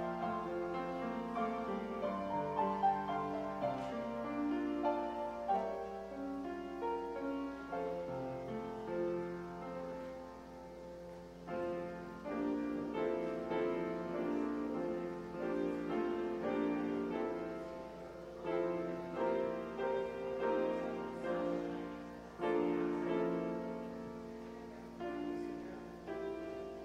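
Grand piano playing a gentle melodic piece, notes ringing and dying away in flowing phrases, with a short lull about ten seconds in.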